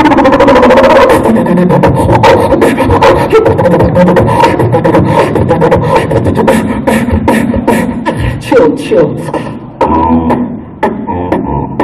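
Solo human beatboxing through a handheld microphone and PA speaker: fast drum-like clicks and snare hits mixed with pitched vocal tones, opening with a very rapid run of clicks and with a deep bass sound near the end.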